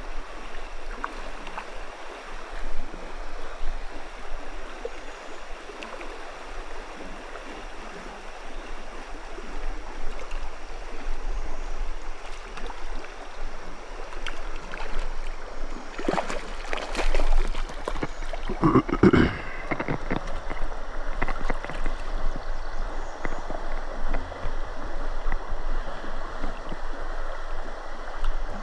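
Shallow riffle of a trout stream rushing steadily over rocks. A little past halfway there is a short cluster of louder sudden sounds.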